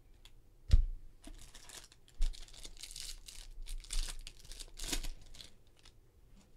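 Foil wrapper of a Bowman Chrome jumbo card pack being torn open and crinkled by hand, in several rips from about a second and a half in until about five seconds. It follows a louder dull thump about a second in.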